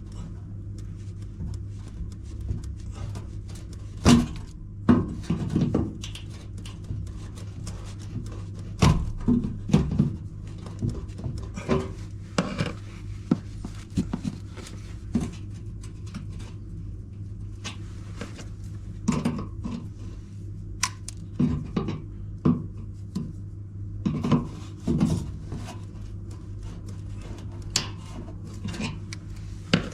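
Irregular metallic clicks, taps and knocks of hand tools working at a tight shock-absorber pin on a washing machine, over a steady low hum.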